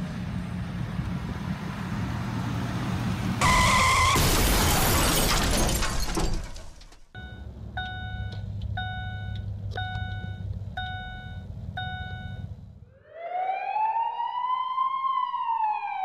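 A loud car crash lasting about three seconds, with a brief high screech at its start. After it, electronic beeps sound about once a second over a low steady hum. Near the end an emergency-vehicle siren wails, rising and then falling.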